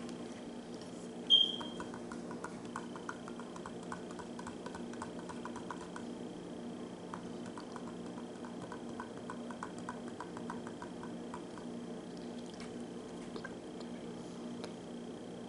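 Eggnog and rum cocktail being sipped through a straw from a wine glass: two long runs of rapid small wet clicks and slurps. About a second in, a single bright glass clink rings out.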